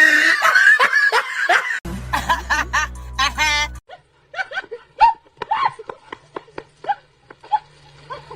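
A person laughing in short snickering bursts, with a clip of music playing from about two to four seconds in.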